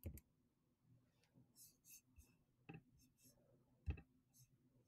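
A few faint computer-mouse clicks in near silence: one right at the start, one a little under three seconds in and the loudest about four seconds in, with soft rustles between.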